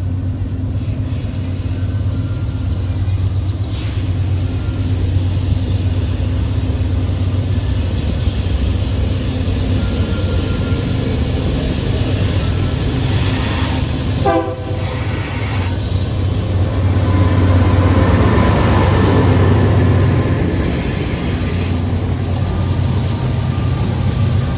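Intermodal freight train led by seven diesel locomotives passing close by: a loud, steady deep engine rumble, with a thin high steady squeal of wheels on rail through roughly the first half.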